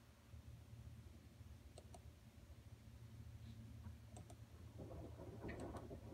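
Faint computer mouse clicks, a few of them in quick pairs, over a low steady hum, with a light rustle near the end.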